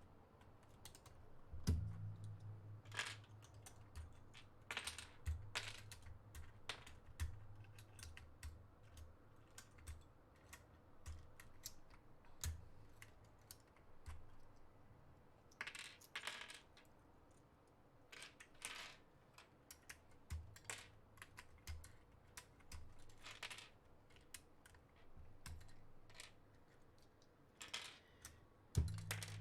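Plastic keycaps being swapped on a mechanical keyboard, heard as faint, irregular clicks and small plastic clatter, with a few low handling bumps, the strongest just after the start and near the end.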